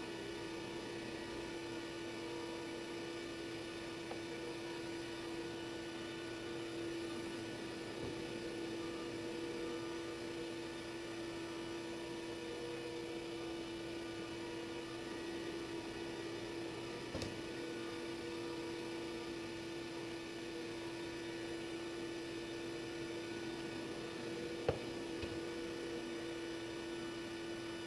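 Steady electric motor hum with a constant pitch and overtones, fitting the Onefinity CNC router's spindle running while it surfaces the spoil board. Two light clicks, one past the middle and one near the end.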